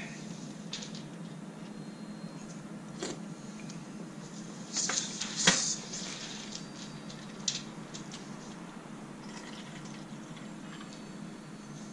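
A metal spoon clinking against a metal camping bowl of fish cake soup, with small eating noises and a sharper clink about five and a half seconds in. Liquid is poured into the bowl near the end.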